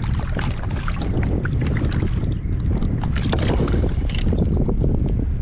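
Wind rumbling on the microphone, with water lapping and small splashes against a kayak hull and scattered light ticks.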